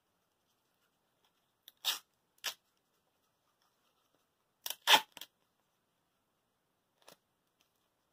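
Short crackling noises of craft materials being handled: a pair about two seconds in, a loudest cluster of three around the middle, and a faint one near the end.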